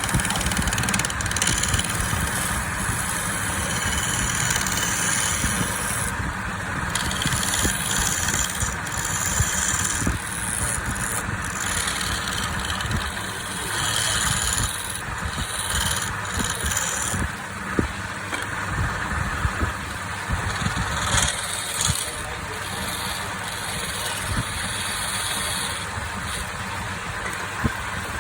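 Wood lathe running with a steady motor rumble, while a turning tool cuts the spinning wood in passes, a high scraping hiss that comes and goes every few seconds.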